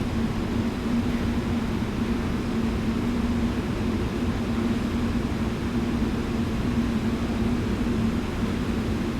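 A steady low mechanical rumble with a constant hum, holding level throughout.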